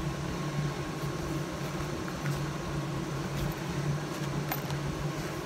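Steady low mechanical hum, with a couple of faint clicks about two and four and a half seconds in.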